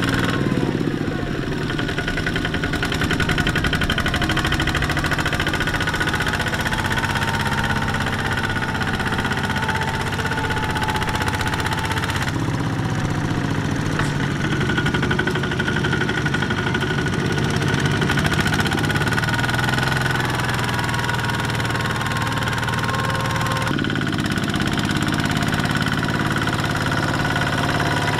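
Single-cylinder Kubota diesel engines of two-wheel walking tractors running steadily under load, pulling trailers of rice sacks through deep mud. The engine note changes abruptly twice as the sound switches from one tractor to another.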